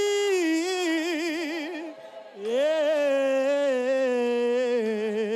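Worship singing: a long held sung note with a wavering vibrato, breaking off about two seconds in, then a second long held note.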